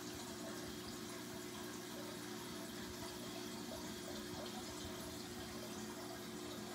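Aquarium filter running: a steady wash of moving water with a low, even motor hum underneath.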